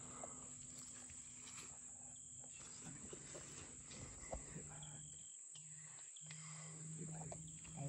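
Faint, steady high-pitched buzz of insects chorusing in woodland.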